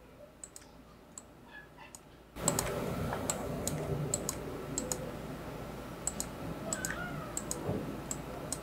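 Computer mouse clicking in short, sharp, irregular clicks, a few a second, as blemishes are spot-healed one by one in photo retouching. A steady background hiss comes up suddenly about two and a half seconds in.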